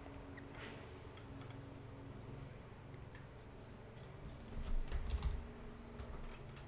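Computer keyboard typing: scattered key clicks, with a few louder, deeper knocks about four and a half to five seconds in.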